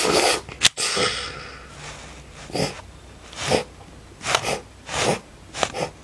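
About eight short, breathy bursts at uneven gaps, with one sharp click under a second in. These are mouth-made sound effects for the toy fight, like the voiced "Bam!" and "Ching!" elsewhere in the film.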